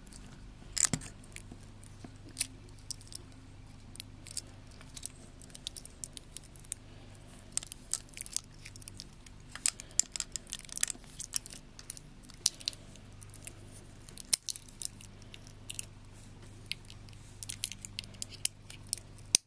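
Stainless steel diver's watch bracelet and fold-over clasp clicking and clinking as the watch is handled and the bracelet flexed, with irregular light metallic ticks throughout over a steady low hum.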